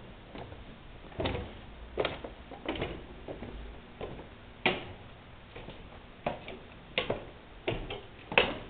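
Footsteps on stairs and a hard floor: unevenly spaced knocks, about one a second, some louder than others.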